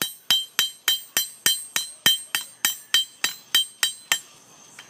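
Hammer blows on hot steel over an anvil while forging blacksmith's tongs: a fast, even run of about three and a half strikes a second, each blow ringing. The blows stop about four seconds in.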